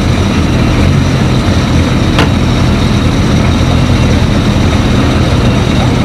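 Ford Fiesta rally car engine idling, a steady low note, with one short sharp click about two seconds in.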